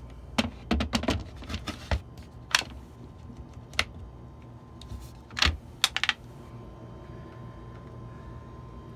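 A scatter of light clicks and knocks: several in the first two seconds, single ones about two and a half and four seconds in, and a cluster around five and a half to six seconds, over a steady low hum.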